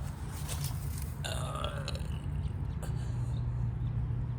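Residential central air-conditioner condenser running, its scroll compressor giving a steady low hum under the whir of the fan. A brief higher-pitched sound comes in a little over a second in.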